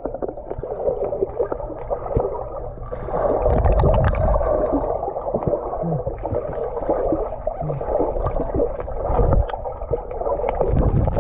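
Water heard from below the surface: a muffled churning and gurgling as people jump and kick in a swimming pool, with a few heavy low thumps and many small clicks.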